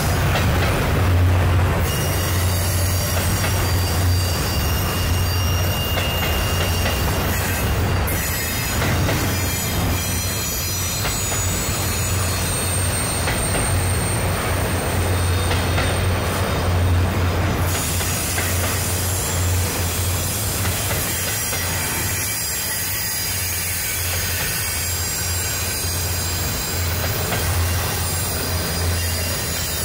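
Double-stack container freight cars rolling across a steel girder bridge: a steady, loud rumble of wheels on rail. A thin high wheel squeal rides over it for a few seconds in the middle.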